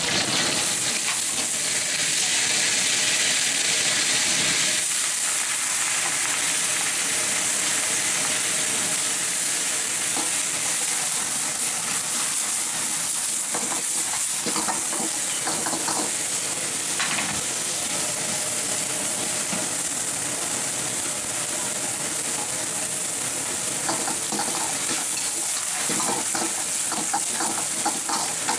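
Greens stir-frying in hot oil in a carbon-steel wok over a high gas flame: a steady loud sizzle, with the metal ladle scraping and clacking against the wok as it tosses them.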